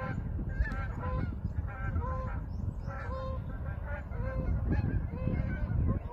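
A flock of Canada geese honking, many short calls overlapping in quick succession, over a steady low rumble.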